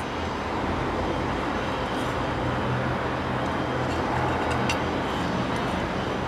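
Steady low rumble of street traffic, with a few faint ticks and scrapes from a small trowel scooping potting soil into a ceramic pot.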